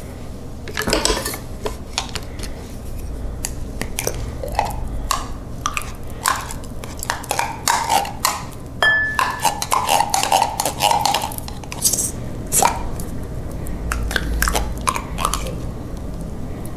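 A metal spoon scraping and clinking inside a small tin can and against a ceramic bowl as thick tomato paste is scooped out, in a run of irregular clicks and scrapes.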